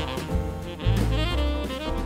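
Background instrumental music: a melody over a bass line.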